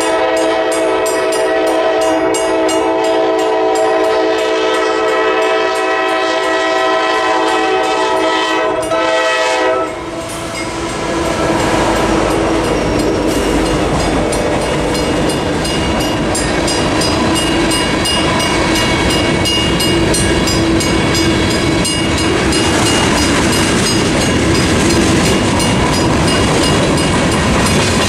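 Locomotive air horn of a Norfolk Southern GE AC44C6M blowing one long, steady chord as it reaches a grade crossing, over a mechanical crossing bell ringing steadily. About ten seconds in the horn cuts off and the freight train passes through the crossing, with loud wheel-on-rail noise and clattering from the passing cars.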